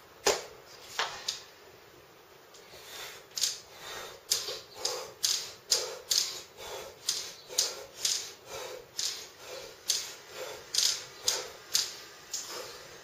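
Fast exercise repetitions with a metal exercise bar: a short sharp sound on each rep, about two a second, after two louder ones in the first second.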